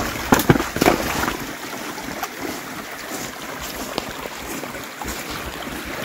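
Wind buffeting the microphone as a steady rushing noise, with a few sharp knocks in the first second.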